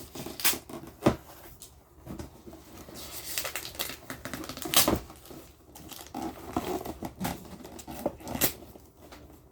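Rustling and crinkling with several sharp clicks and knocks, from Christmas presents and their wrapping being handled.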